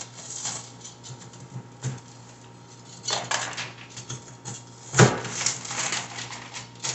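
Kitchen utensils and dishes clinking and knocking as chopped bell peppers are added to a pot. There is a scatter of light clicks, a small cluster about three seconds in, and a sharper knock about five seconds in.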